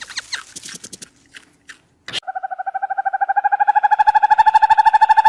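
An animal call: a few short chirps and clicks, then about two seconds in a long, rapid, pulsing trill on one pitch that grows louder.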